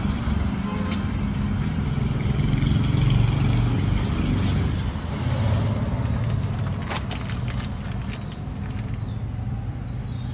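Steady low rumble of background motor noise, with a few sharp clicks about seven seconds in.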